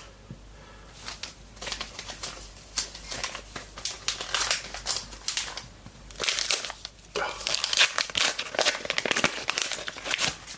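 Trading-card pack wrapper crinkling and tearing as it is opened, with a dense, irregular crackle throughout.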